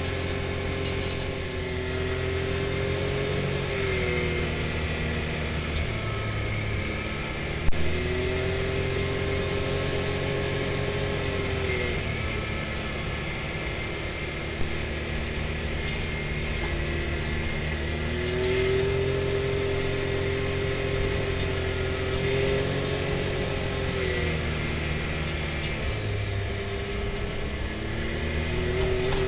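Can-Am Maverick X3 side-by-side's turbocharged three-cylinder engine running while driving along a gravel trail. Its pitch rises and falls several times as it speeds up and eases off, with a sharp knock about eight seconds in and another about fifteen seconds in.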